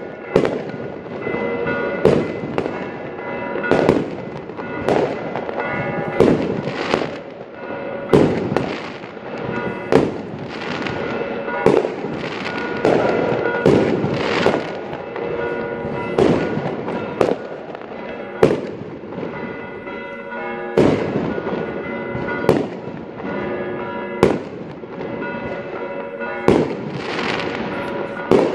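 Aerial fireworks shells bursting in the sky, a sharp bang every second or two, one after another, with a continuous haze of sound between the bangs.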